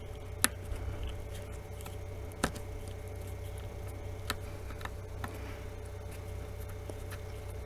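A few short, sharp clicks of a small screwdriver working a phone's tiny back-housing screws, spaced a second or two apart.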